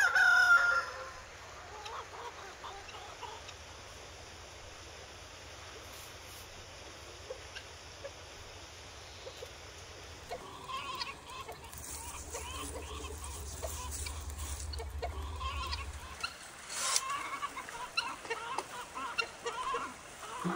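Domestic chickens clucking, with a rooster's crow at the very start. Short calls come thick and fast in the second half.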